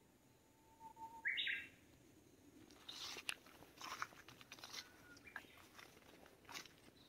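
A Japanese bush warbler (uguisu) sings once: a long, steady low whistle, then a quick, higher, louder closing phrase, the "hoo-hokekyo" song. From about halfway on there are irregular crunching footsteps through leaves and undergrowth.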